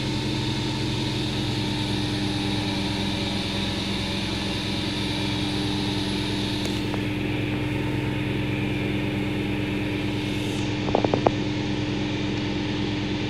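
Rug-wringing centrifuge spinning a washed rug to extract water from it, a steady machine hum with a hiss; the high hiss drops away about halfway through. A quick cluster of three or four sharp clicks comes near the end.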